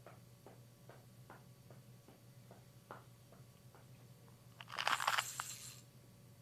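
Hand-performed Foley sound effects: a run of light, evenly spaced taps, about two or three a second, then a loud noisy burst lasting about a second near the end.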